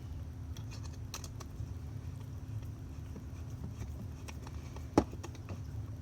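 Small clicks and taps of metal parts and a screwdriver while a screw is driven by hand into a kit-built cup turner. One sharp knock comes about five seconds in.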